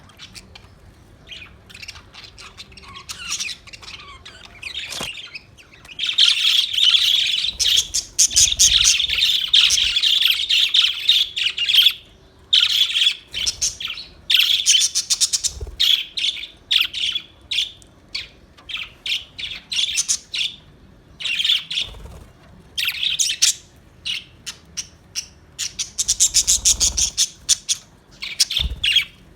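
A flock of small Australian parrots chirping and squawking in quick, busy chatter, with bursts of dense calling broken by short pauses.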